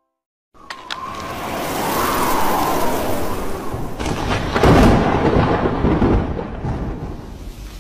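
Thunderstorm: after a moment of silence, a sharp crack of thunder opens into a long rolling rumble over rain. The rumble is loudest and deepest about halfway through, then eases back to the rain near the end.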